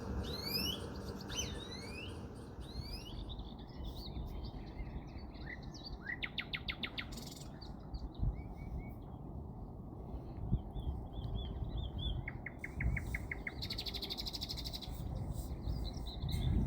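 Small birds chirping and trilling: a run of quick rising chirps at first, then short rapid trills a few times, over a steady low background rumble.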